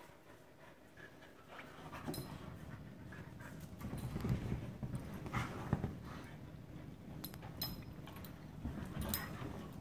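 Two dogs play-wrestling on a couch, panting and scuffling, louder from about four seconds in.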